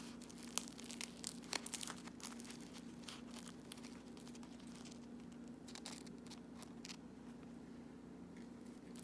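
Scattered crinkling and tearing sounds of something being handled, with a cluster of sharp clicks in the first two seconds, over a steady low hum.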